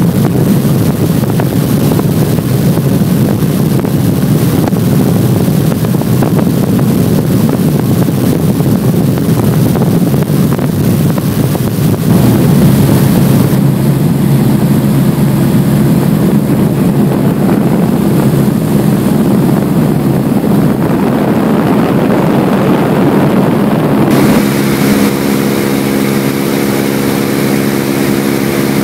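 Light aircraft's piston engine and propeller droning steadily, heard from inside the cabin with wind noise; the tone of the drone changes abruptly about halfway through and again near the end.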